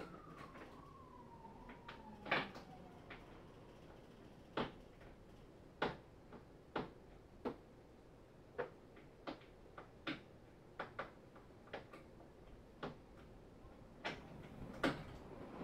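Sharp clicks and knocks at irregular intervals, roughly one a second, from hardware being handled while a Jeep's roof is taken off. A faint wavering tone falls in pitch over the first three seconds.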